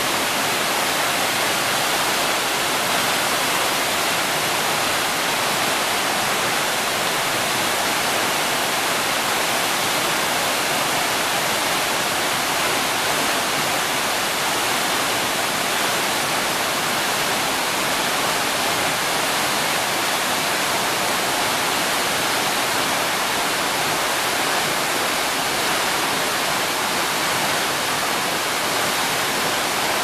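Waterfall plunging into its pool: a steady, even rush of falling water and spray, more hiss than rumble.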